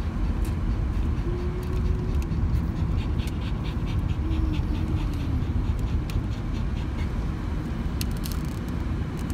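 Steady low road rumble inside a moving car, with two faint short whines and a few light clicks.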